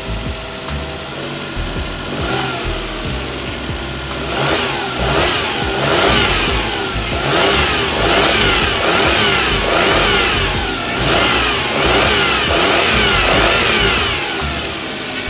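Suzuki Every kei van's engine being revved over and over, the pitch rising and falling about once a second, building up a few seconds in and easing off near the end.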